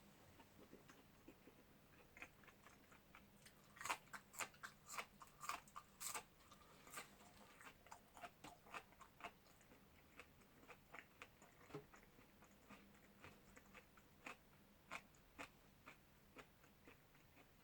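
A person eating close to the microphone: chewing with sharp, crisp crunching clicks, densest about four to seven seconds in, then slower and sparser.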